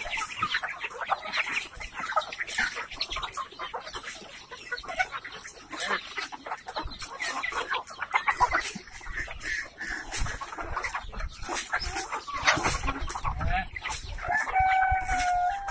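A large flock of free-range village chickens clucking and calling over one another, with many quick sharp taps of beaks pecking at the ground. Near the end a rooster crows with one long drawn-out call.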